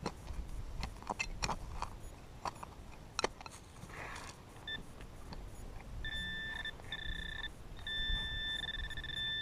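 Clicks of soil being worked in a hole, then a Garrett handheld pinpointer beeping: a short blip about halfway, two short tones, and then a long steady tone near the end as the probe sits close to a metal target in the soil.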